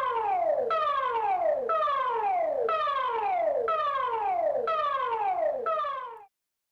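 Singapore emergency alert tone: a siren-like tone that falls quickly in pitch, repeated about once a second, cutting off near the end.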